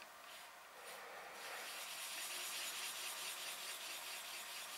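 0000 steel wool loaded with metal polish rubbed in small circles over the cast-iron sole of a Stanley No. 5 hand plane: a faint, steady scrubbing hiss as the flattened sole is polished to a hazy mirror finish.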